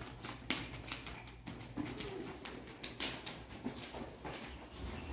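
A paint horse's hooves striking soft arena sand as it is led at a trot, with the handler's footsteps alongside; a bird calls once, briefly and low-pitched, about two seconds in.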